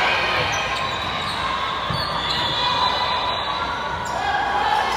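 Volleyball play on a gym court: sneakers squeaking on the floor in short pitched squeaks, a couple of dull thuds, over a steady murmur of crowd chatter in a large echoing hall.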